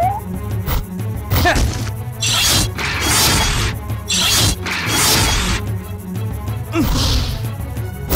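Cartoon action music with a steady bass beat, overlaid by fight sound effects: about half a dozen quick whooshes and hard hits as punches and slashes land.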